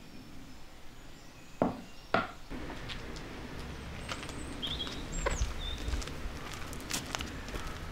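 Two sharp knocks about half a second apart, then a steady outdoor hiss with a few short bird chirps and light clicks.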